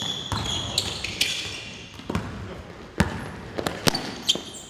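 Basketball bouncing on a hardwood gym floor in irregular dribbles, with sneakers squeaking on the floor. The loudest thud comes about three seconds in.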